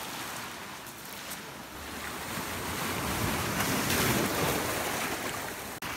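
Sea surf washing and foaming over rocks and pebbles at the shoreline, a steady rush that swells to its loudest about four seconds in.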